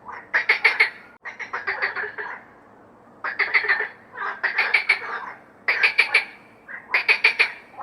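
Frog calling: about six bursts of quick, rattling pulsed croaks, each burst under a second long, repeating roughly once a second.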